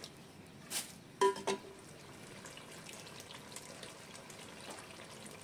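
Chicken and spice masala frying gently in oil in an aluminium pot, a faint steady sizzle. About a second in, a metal spoon scrapes once and clinks twice against the pot, each clink ringing briefly.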